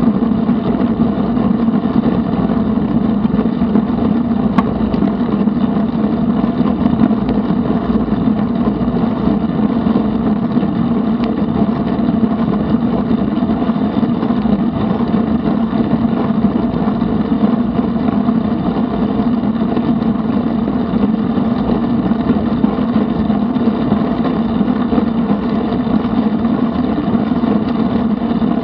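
Steady rush of wind and tyre noise from a bicycle rolling along an asphalt trail, picked up by an action camera mounted on the bike, with a strong low hum throughout.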